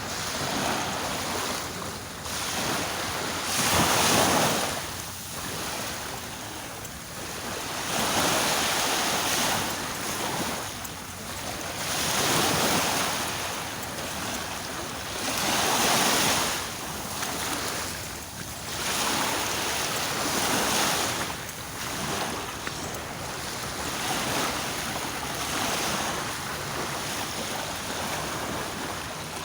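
Sea waves breaking and washing onto the shore, the surf swelling and falling back about every four seconds.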